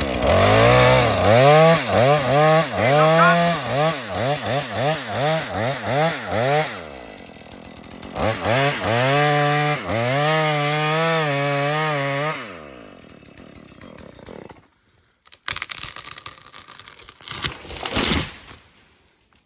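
Two-stroke chainsaw revved in quick blips, nearly two a second, then held at high revs for a few seconds before it shuts off. A few sharp knocks follow near the end.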